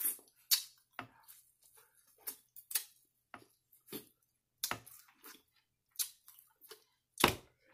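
Biting kernels off a cob of sweet corn and chewing, heard close up as a string of short, crisp crunches and clicks at an uneven pace, the loudest near the end.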